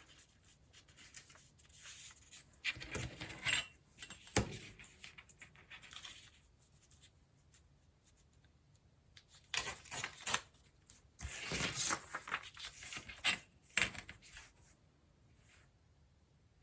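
Scrap paper being torn and handled in several separate bursts of tearing and rustling, the longest and loudest in the second half, with a sharp tap about four seconds in.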